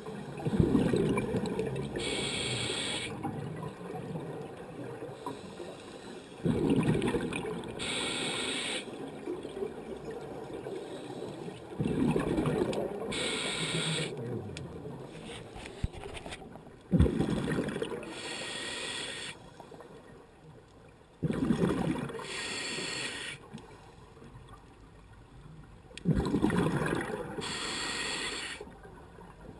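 Scuba diver breathing through a regulator underwater, about one breath every five seconds. Each breath gives a short hiss as the diver inhales, then a louder bubbling rush of exhaled bubbles that sets in suddenly and fades over a few seconds.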